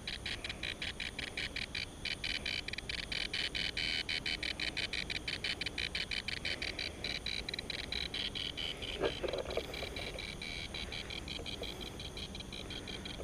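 Crickets chirping in a rapid, even pulse that keeps going, fainter in the second half, with a brief rustle about nine seconds in.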